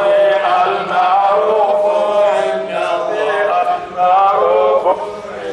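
A male voice chants an Arabic Islamic devotional song (a nasheed praising Allah) with long, held, ornamented notes that glide between pitches. No drums or percussion are heard.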